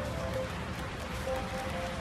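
Background music: a simple melody of short held notes that repeats, over a steady hiss and low rumble.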